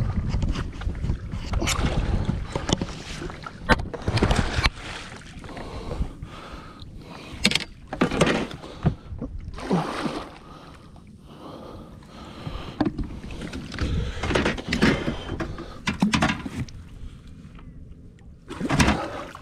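Irregular knocks, bumps and rustles of a large mulloway being hauled aboard a small boat in a landing net, the net's metal frame knocking against the boat and gear. Wind rumbles on the microphone in the first few seconds.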